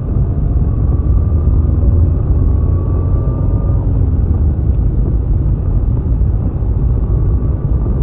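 Steady low rumble of a moving car's engine and tyres on a wet road, heard from inside the cabin, with a faint whine that rises slightly during the first few seconds.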